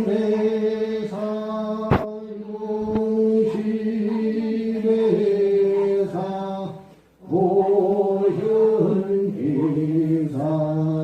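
Korean Buddhist chanting: a voice holding long, drawn-out notes that step slowly in pitch, with a sharp click about two seconds in and a brief pause for breath about seven seconds in.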